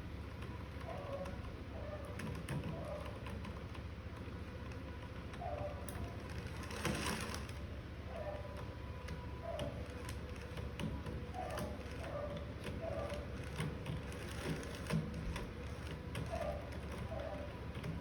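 Steady low hum with a faint steady whine and light scattered clicking, typical of a small motor-driven mechanism running. Over it a dove coos repeatedly in short groups of two or three falling notes, and there is a brief hiss about seven seconds in.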